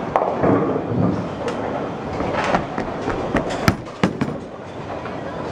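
Bowling ball rolling down a wooden lane with a continuous rumble, then a few sharp clattering knocks about three and a half to four seconds in as it hits the pins.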